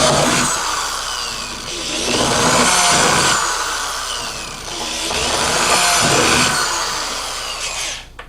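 Power drill boring a larger hole over a pilot hole, running in three long pushes with the motor whine rising and falling, then stopping about eight seconds in.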